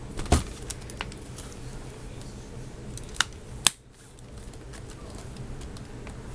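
A few sharp plastic clicks and taps from handling a freshly reassembled HP Pavilion dv5 laptop as it is readied to power on, the loudest just before the middle, over a steady low hiss.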